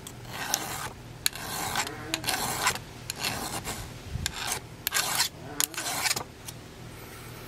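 Flat file rasping across a saw chain's rakers (depth gauges) through a depth-gauge guide, in about half a dozen short strokes, with light clicks between them. The rakers are being lowered after the cutters were sharpened.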